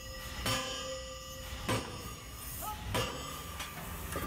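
Forging hammer striking a red-hot steel workpiece: three metallic clangs about a second and a quarter apart, each leaving a ringing tone.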